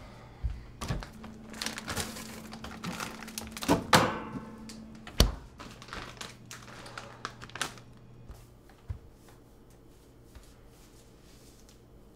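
Refrigerator door opened and things handled inside: rustling, knocking and the crinkle of a frozen plastic bag being pulled out. The door shuts with a sharp thunk about five seconds in, the loudest sound, and a few quieter taps follow.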